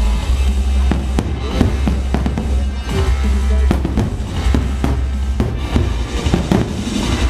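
Fireworks bursting in many rapid, irregular bangs over loud music with a heavy bass.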